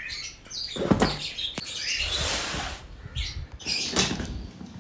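Suitcases being set down and moved about on a tiled floor: a few knocks and bumps, the loudest about a second in, and a longer scraping rush of noise about two seconds in.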